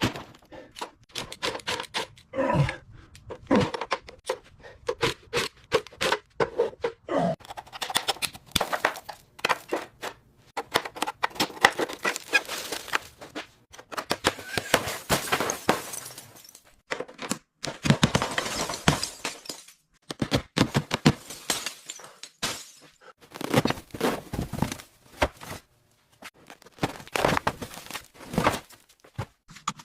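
Irregular knocks, thunks and scraping of rusted car bodywork being pried and broken apart, with several short stretches of hissing.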